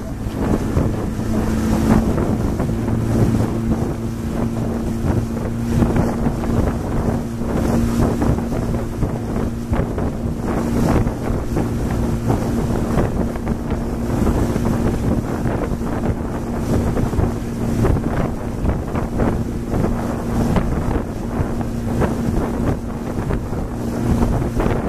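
Motorboat engine running steadily with an even low hum, under wind buffeting the microphone and water rushing past the hull.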